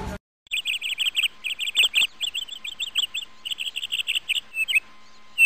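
Rapid high-pitched chirping in quick runs of notes, many a second. It is cut in abruptly after a brief dead gap and stops just as abruptly, like an inserted ambience or sound effect.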